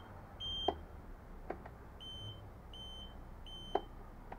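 Small buzzers wired to an electric scooter's turn indicators beeping in time with the flashing, showing the indicator is on: short high beeps about every 0.7 s, four in all with a pause after the first. Three sharp clicks come between the beeps.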